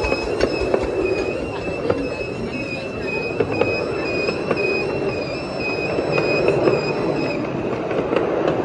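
Miniature railway carriages rolling past close by: a rumble of small wheels with irregular clicks over the rail joints and crossing. A steady high-pitched wheel squeal runs under it and stops near the end as the last vehicle passes.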